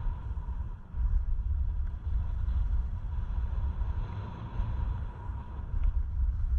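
Gusty wind rumble on a GoPro action camera's microphone as a skier descends a groomed piste at about 25–30 km/h, briefly easing just before a second in. A faint steady tone runs underneath.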